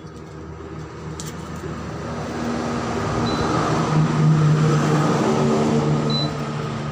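A motor vehicle's engine passing by, growing louder to a peak about two-thirds of the way through and then fading away.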